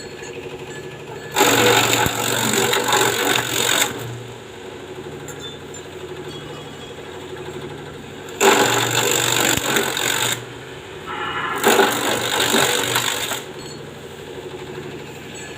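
Motor-driven grass chopper (chaff cutter) running with a steady hum. Three times, for about two seconds each, a loud rush of cutting noise rises over it as grass is fed through the blades and chopped.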